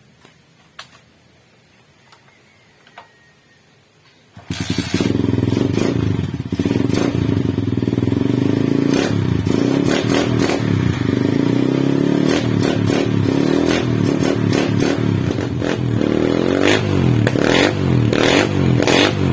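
Rusi Macho 125 motorcycle with a newly fitted aftermarket chicken pipe exhaust. After a few faint clicks, the engine starts suddenly about four and a half seconds in and runs loud, its exhaust note rising and falling.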